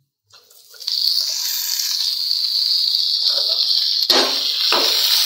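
Diced tomatoes hitting hot oil with frying onions in a steel karahi: a loud, steady sizzle that starts about a second in. Near the end, a slotted steel spoon knocks twice against the pan.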